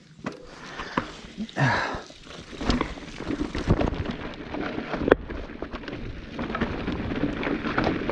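Mountain bike rattling over a rough rocky, rooty downhill trail: a dense clatter of tyres and frame with many sharp knocks, one louder about five seconds in.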